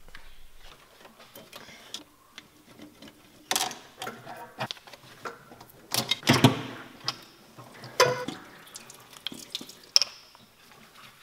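Irregular metal clanks, knocks and scrapes as the inlet manifold is worked loose and lifted off the engine by hand. The loudest knocks come about three and a half, six and eight seconds in.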